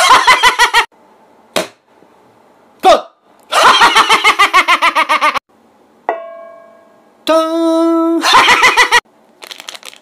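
A man's loud vocal imitations of object sounds: shrill screams that pulse rapidly, twice, with a couple of sharp clicks between them. About six seconds in there is one struck ringing tone that dies away, then a steady held note that breaks into another scream, and plastic wrapping crinkles near the end.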